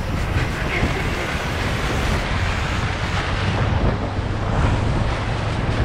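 Wind buffeting the microphone and water rushing against an inflatable tube being towed at speed, with a steady low hum underneath.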